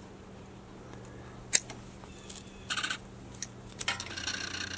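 A single sharp snip as the excess starter rope is cut off, followed by two short spells of light, quick clicking and rattling.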